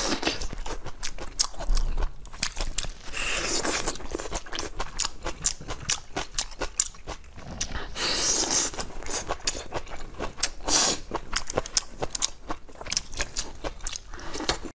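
Close-miked eating: biting and chewing skewered bobo chicken items in chili oil, a dense run of wet smacks and small crunchy clicks with a few longer hissy stretches in between.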